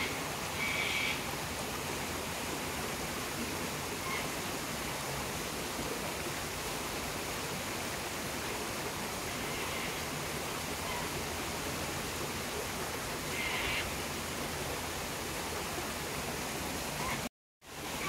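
Steady rush of a waterfall, with a few short, distant cockatoo screeches: one near the start, one around the middle and one a few seconds later. The sound cuts out for a moment shortly before the end.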